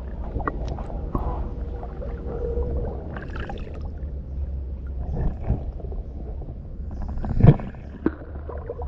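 Shallow muddy river water sloshing and gurgling around a camera held at the surface, over a steady low rumble, with a few handling knocks; the loudest knock comes about seven and a half seconds in.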